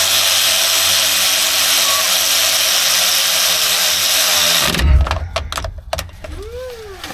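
Cordless drill driving bolts down on a Jeep driveshaft, its motor running with a steady whine that stops abruptly a little over four and a half seconds in. A few short knocks follow.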